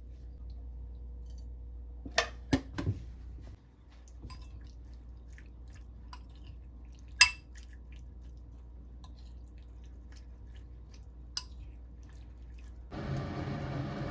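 A metal spoon stirs raw chicken pieces in a glass bowl: soft, wet squishing, with occasional sharp clinks of the spoon against the glass. The loudest clink comes about 7 s in. About 13 s in, a louder steady noise takes over.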